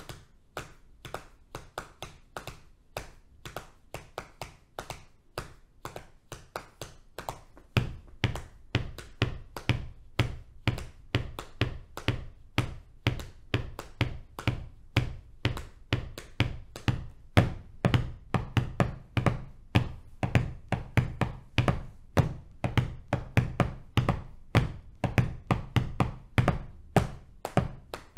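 Hands tapping on the thighs as body percussion, playing a steady five-against-four polyrhythm in an even run of quick, light taps. About eight seconds in, deeper, louder thuds join the taps and keep the pattern going.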